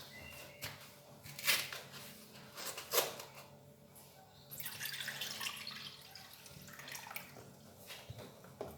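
Liquid being poured into a container, with a few sharp knocks of kitchenware.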